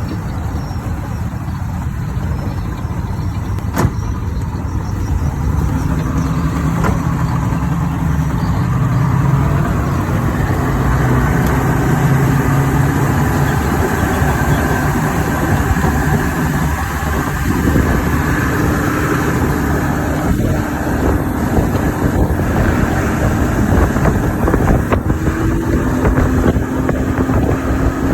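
Overhauled Yamaha 200 hp outboard motor running steadily, its pitch shifting a little partway through.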